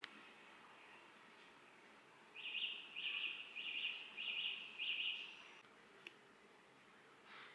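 A bird chirping: a run of about six quick, high chirps a couple of seconds in, over faint steady background noise. A single soft click near the end.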